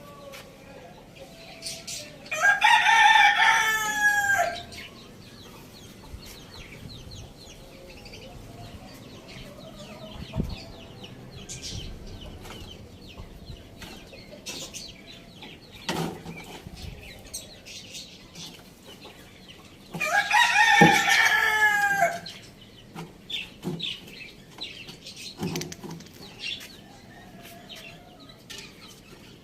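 Rooster crowing twice, each crow about two seconds long, the second about eighteen seconds after the first, with chickens clucking and short clicks of pecking in between.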